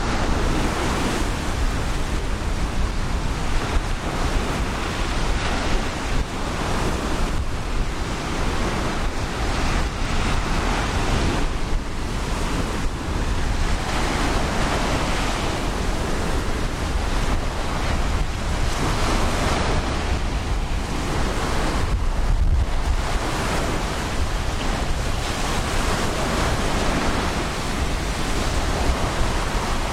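Ocean surf breaking and washing up the beach, a continuous rush that swells and eases every few seconds, with wind buffeting the microphone as a low rumble underneath.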